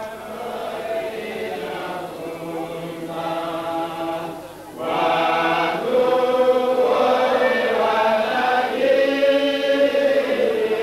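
A choir of many voices singing together in long held notes. It starts softer and grows louder from about five seconds in.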